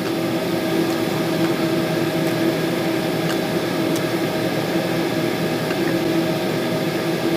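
A small electric motor or fan humming steadily over a hiss, with a few faint clicks about two to four seconds in.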